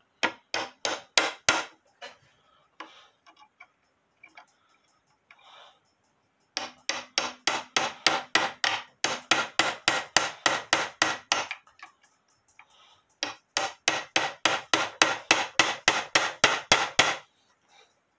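Small nails being tapped into the wooden rim of a drop dial clock case to fix the dial bezel ring, in light, quick taps of about four to five a second. The taps come in three runs, with a pause of a few scattered taps after the first.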